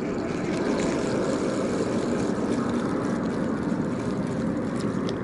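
Steady jet-like drone of a distant industrial plant, an even rushing noise.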